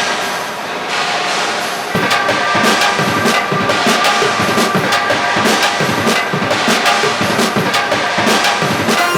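Background music: a soft swelling intro, joined about two seconds in by a steady drum beat.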